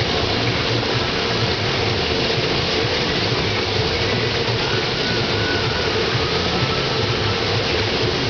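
Fountain water falling and splashing steadily into its pool, an unbroken rushing noise.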